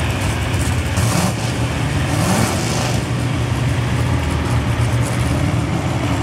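Chevrolet pickup pulling truck's engine running steadily at low revs, a deep even drone with no hard rev.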